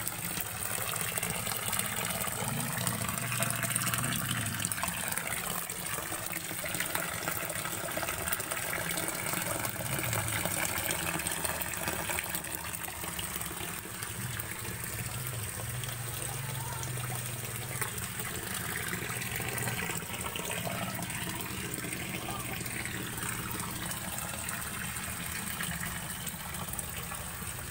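A stream of running water pouring and splashing steadily onto the wet concrete floor of a shallow fish tank as it is rinsed out.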